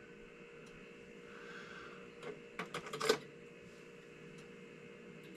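A few light clicks and taps, bunched together near the middle, as small powder-coated lead jig heads are handled and hung on a drying rack to cool. A faint steady hum lies underneath.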